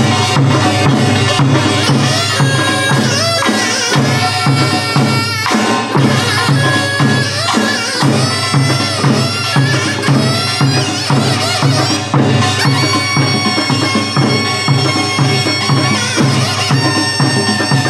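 Korean traditional dance music: a nasal double-reed wind melody that wavers in pitch, over a steady, even drum beat.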